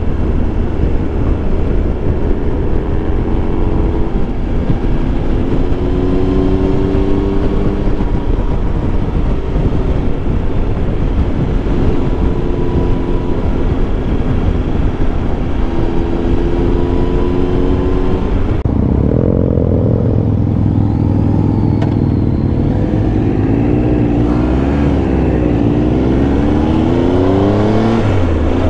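Triumph Tiger Explorer 1200's three-cylinder engine running under way, with steady wind rush over the microphone; the engine pitch rises and falls with throttle and gear changes. About two-thirds of the way in the sound turns duller and the engine swings up and down in pitch several times.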